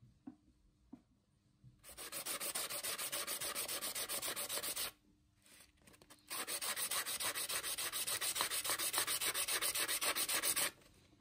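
A metal ring made from a fork is rubbed back and forth on a sheet of sandpaper in quick, even strokes, sanding its side flat. There are two runs of sanding, the first starting about two seconds in, with a short pause between them.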